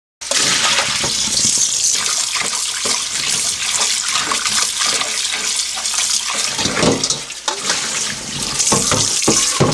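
Tap water running into a stainless steel bowl in a steel sink while a gloved hand squeezes and rinses raw chicken feet, with splashing. Near the end, water pours out as the bowl is tipped into a mesh strainer, with a few sharp knocks.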